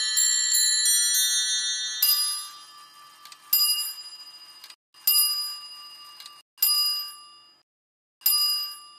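An 18th-century musical clock's chime, Francis Bayley's pinned-barrel movement with hammers striking bells, finishing its tune. Quick overlapping bell notes run for about two seconds, then five single chords are struck about a second and a half apart, each ringing and dying away.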